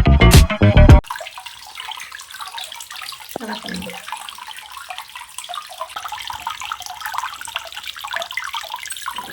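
Water from a miniature tabletop waterfall trickling and splashing over river stones in a steady, light patter. Music plays for the first second, then cuts off suddenly.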